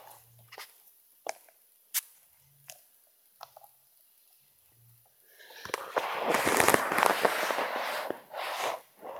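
Handling noise from a handheld camera: a few scattered light clicks, then from about five and a half seconds in a few seconds of loud rustling and crackling close to the microphone.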